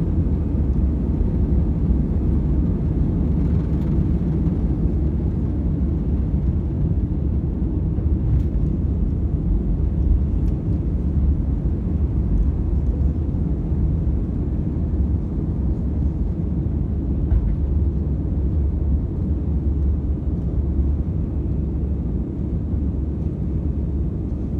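Jet airliner cabin noise during takeoff and initial climb: a steady low roar of the engines at takeoff power and rushing air, heard from inside the cabin, easing slightly near the end.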